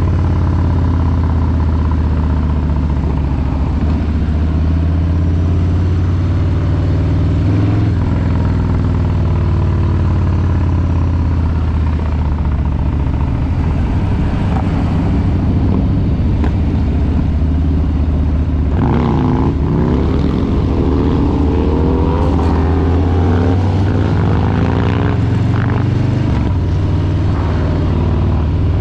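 Harley-Davidson Street Bob 114's Milwaukee-Eight V-twin exhaust while riding, its deep low rumble steady under throttle changes. The engine note eases off about a quarter of the way through, and from about two-thirds in the revs climb through hard acceleration.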